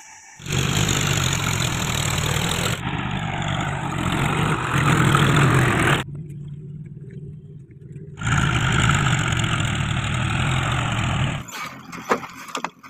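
Farm tractor engine running, the sound cutting in and out abruptly several times. A few sharp knocks near the end.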